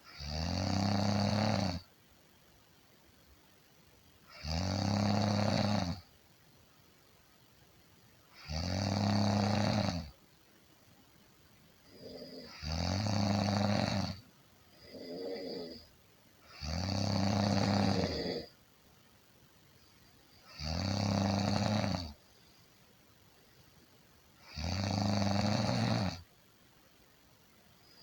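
Someone snoring steadily: seven long snores, one about every four seconds, with a shorter, softer breath sound between two of them about halfway through.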